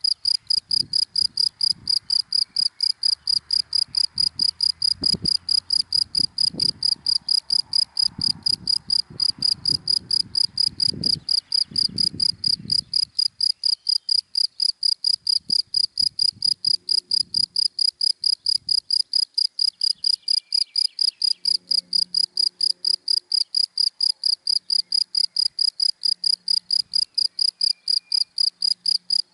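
A cricket chirping steadily in a fast, even rhythm of about four high-pitched chirps a second. A faint low rumble sits underneath for the first half.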